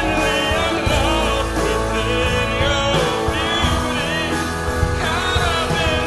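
Worship band playing a rock-style song with a lead vocal singing over guitars and bass.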